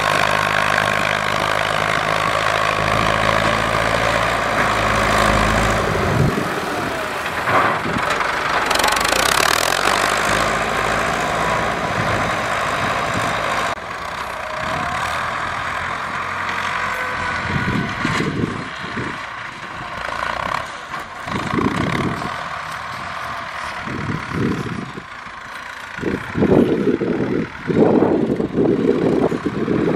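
Ford 6600 diesel tractor engines running while a front blade pushes soil. The nearest engine's deep, even note drops out after about six seconds as it pulls away, leaving a steadier mid-pitched running sound, with uneven low surges over the last few seconds.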